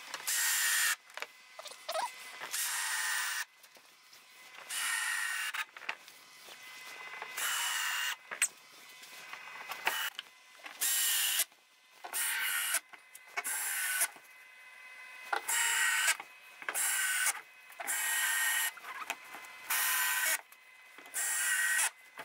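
Cordless drill run in about fifteen short bursts of half a second to a second each, drilling bolt holes through plastic Hyfax runners and the sled's plastic hull.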